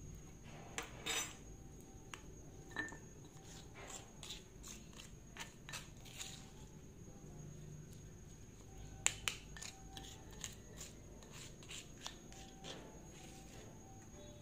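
Spatula scraping ground chili paste out of a stone mortar and onto a plate: irregular light scrapes and taps of the spatula against stone and plate, with one sharper clack about nine seconds in.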